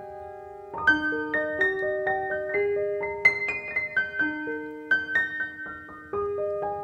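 Background piano music: a melody of single struck notes, one after another, each fading after it sounds.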